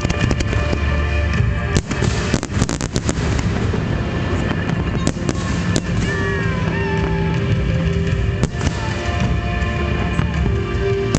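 Fireworks display: sharp bangs and crackles, a quick cluster about two seconds in and single reports around five, six, eight and eleven seconds, over music playing.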